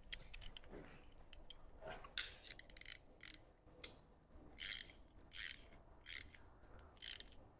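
Ratchet wrench tightening a bolt on the engine: faint short raspy ratcheting strokes with light clicks between, settling into a regular stroke about every 0.7 s in the second half.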